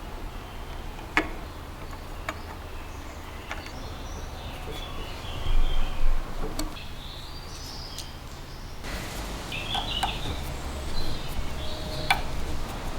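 Bird calls with a few sharp clicks and knocks scattered through, and a louder stretch of knocking a little past the middle.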